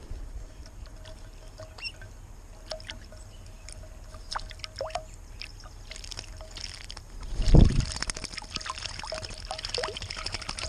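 Common starlings bathing in a shallow stone birdbath: splashing as they flap their wings in the water, loudest about seven and a half seconds in, with small drips and taps in between.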